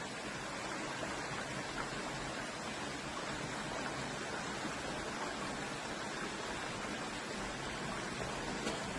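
Steady rush of water flowing over rocks in a low, shallow river.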